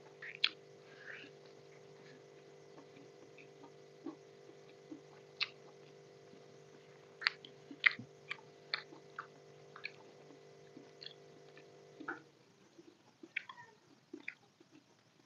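Close-miked eating sounds: chewing chicken and biryani rice, with irregular sharp mouth clicks and wet smacks, and fingers squishing rice on the plate. A steady background hum stops about twelve seconds in.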